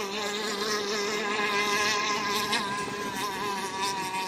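Radio-controlled racing boats' motors running at speed out on the water: a steady, high-pitched buzz whose pitch wavers slightly.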